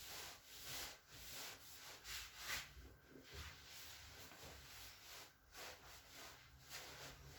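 Faint rubbing and shuffling of hands on skin and clothing as a chiropractor works a patient's back and shoulder blade, with no crack heard.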